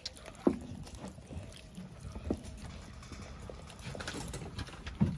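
Pit bull chewing and tearing at a whole raw chicken, with three sharp crunches: one about half a second in, one a little after two seconds, and one near the end.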